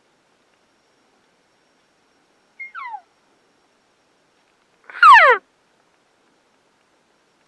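Two short cow-elk mews, each a call that falls in pitch. The second, about two seconds after the first, is much louder.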